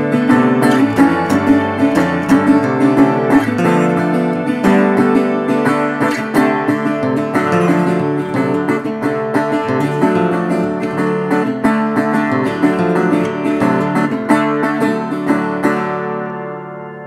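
Background music: plucked acoustic guitar with a steady rhythm, fading out near the end.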